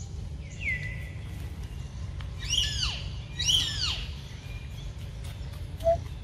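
Two loud, high-pitched animal calls about a second apart, each arching up and then dropping in pitch, after a fainter downward whistle, over a steady low background rumble.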